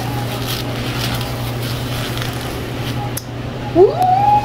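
Tissue rustling against a steady low hum of room equipment, then near the end a woman's loud, high "woo!" that swoops up in pitch and holds.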